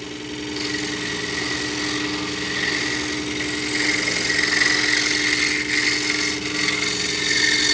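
Scroll saw running at reduced speed with a homemade sanding strip, cut from a sanding disc, fitted in place of the blade, giving a steady motor hum. The strip rasps against a wooden workpiece from about half a second in, and the rasping grows louder partway through.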